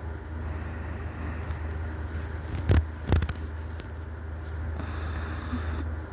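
A steady low hum with no breathing rhythm, broken by two sharp knocks close together about three seconds in.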